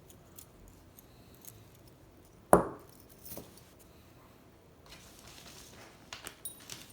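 Old metal padlocks and keys being handled: one loud metal clunk about two and a half seconds in, a softer knock shortly after, and light clinks near the end.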